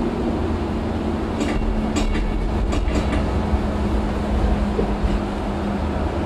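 Interurban tram running along the track, heard from the driver's cab: a steady rumble with a steady hum, and a cluster of sharp clicks and knocks from the wheels on the track a couple of seconds in.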